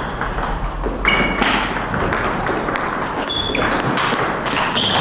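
Table tennis ball clicking off the bats and the table in a rally, a run of sharp pings and knocks.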